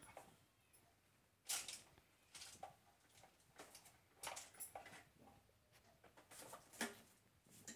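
Near silence: faint room tone with scattered soft clicks and rustles, the loudest about a second and a half in and again near the end.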